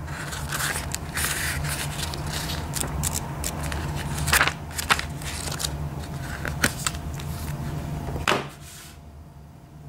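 Paper pages of a small instruction booklet rustling and turning as they are leafed through, with a few sharper page snaps, over a steady low hum. Near the end a last snap, then the rustling stops.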